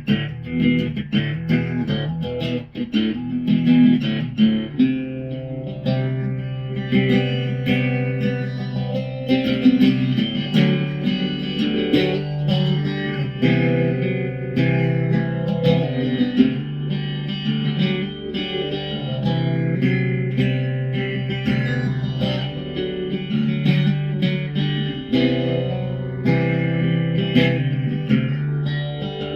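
Background music led by plucked guitar, with a steady bass line under it.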